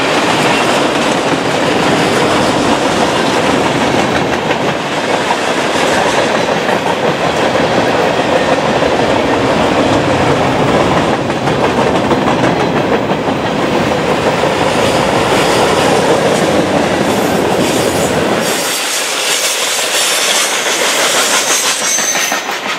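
Freight train cars rolling past close by: steady wheel noise on the rails with a deep rumble. Near the end the rumble drops off suddenly as the last car goes by, leaving a lighter, higher hiss of the train moving away.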